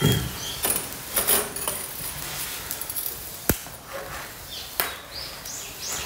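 Small twig fire in a steel fire pit crackling as the kindling catches, with scattered sharp pops and one loud crack about halfway through. Small birds chirp faintly near the end.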